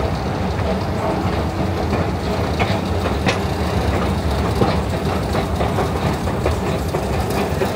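Steady low mechanical rumble in a subway station, with a few light clicks and knocks scattered through it.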